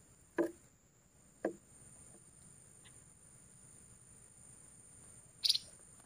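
Steady high-pitched chorus of insects trilling, with three brief sharp clicks: two about a second apart near the start and a brighter, higher one near the end.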